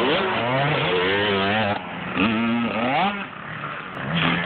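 Small 65cc two-stroke dirt bike engine revving up and down. It holds a high rev, eases off just under two seconds in, climbs again, drops back about three seconds in, then picks up again near the end.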